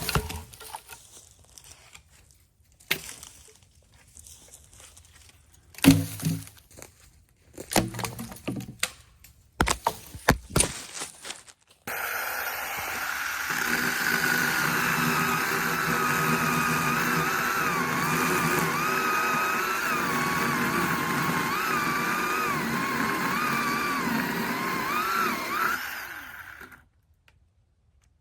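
A few scattered knocks and handling noises, then a Craftsman 10-inch cordless battery chainsaw runs for about fourteen seconds. Its motor whine wavers in pitch as it cuts through pine, then it stops.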